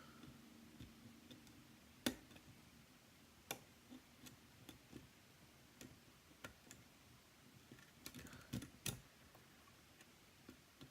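Faint, scattered clicks of a lock pick working the pins inside a six-pin pin-tumbler challenge lock, roughly one tick a second, with a short cluster of them near the end.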